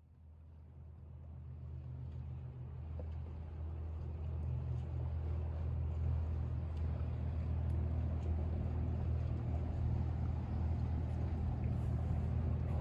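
Low, steady engine drone that fades in over the first few seconds and then holds.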